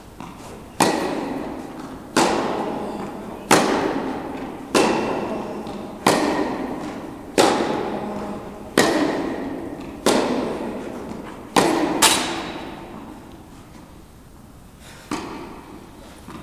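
Tennis ball struck back and forth with rackets in a rally: a sharp pop about every second and a half, each trailing off in a long echo from the indoor tennis hall. The hits stop for a few seconds and start again near the end.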